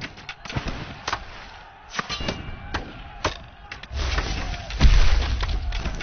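Film sound effects of a rock giant pushing a huge boulder: scattered knocks and cracks of stone, then a deep rumble starts about four seconds in and swells louder.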